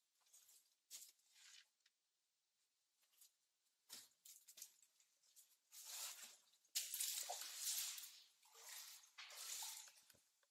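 Soft, irregular footsteps scuffing and crunching over a debris-strewn, wet concrete bunker floor, getting louder and denser after the middle.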